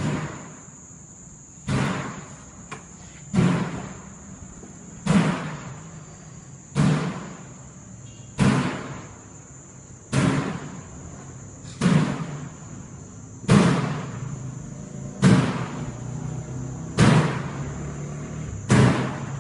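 A morgue door slamming shut again and again on its own. It bangs about every 1.7 seconds, about a dozen times, each bang trailing off in a short echo down the corridor. A steady high-pitched whine runs underneath.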